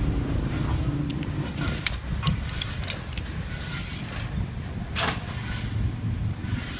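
Steady low rumble, like an engine or traffic, with scattered light metallic clicks and jingles; the loudest is a brief rattle about five seconds in.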